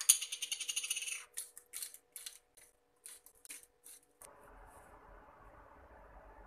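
Hand-twisted spice grinder grinding over a plate of vegetables: a dense run of rapid gritty clicks for about a second, then a few separate short twists. About four seconds in it cuts off suddenly, leaving only a faint steady low hum.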